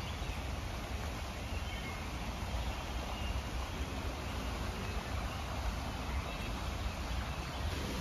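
Stream rushing over rocks: a steady wash of water noise, with a low rumble underneath.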